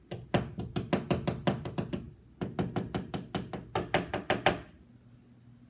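Rapid knocking, a quick series of blows on a hard surface in two runs of about two seconds each, with a brief pause between them.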